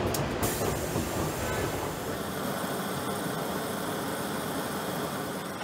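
Sheet-metal factory machinery running with a steady mechanical noise, with a few sharp clicks in the first half second.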